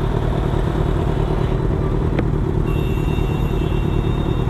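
Motorcycle engines idling steadily, with one sharp click a little past halfway.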